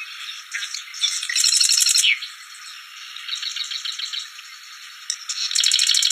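Prinia (prenjak) calling: rapid rattling strings of sharp repeated notes, with two loud bursts, one about a second in and one near the end, and fainter trilling between.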